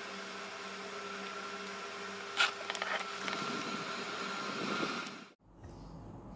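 Small handheld electric fan running steadily, a motor hum under the rush of air, with one click about two and a half seconds in. It stops abruptly about five seconds in, leaving quiet room tone.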